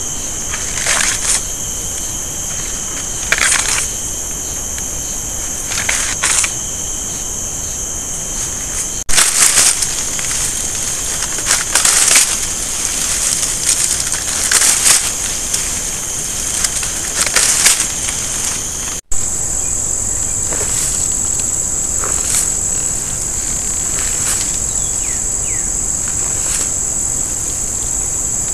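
Night insects keep up a steady, high-pitched trill, and every few seconds an alligator working its nest mound makes brief rustling, crunching scrapes through dry leaves and sticks.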